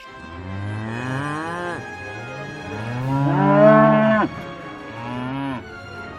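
Cow mooing three times: two long moos, the second the loudest and cut off sharply with a drop in pitch, then a short third moo.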